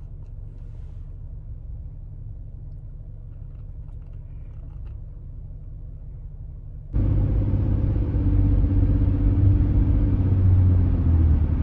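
Low, steady rumble of a car's road noise heard inside the cabin. About seven seconds in it turns suddenly much louder, into a steady drone of tyres and engine on the highway.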